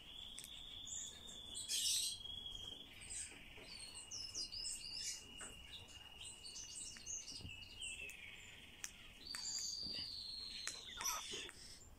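Tame Eurasian golden oriole giving short, high chirps in quick scattered runs, over a steady thin high-pitched whine that shifts pitch a few times.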